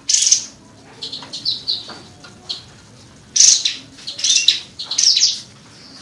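Caged kapas tembak songbird singing in short, bright bursts of rapid high chirping phrases, about five phrases with pauses between them.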